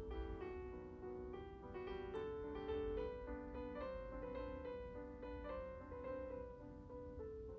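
Background piano music: a melody moving note by note over held chords.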